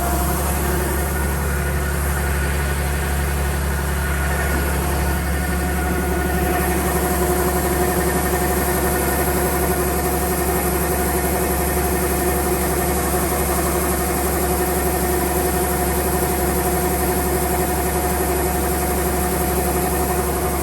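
Kubota DC-105X combine harvester's diesel engine running steadily with a constant drone and steady tones over it. The tone shifts slightly about five seconds in.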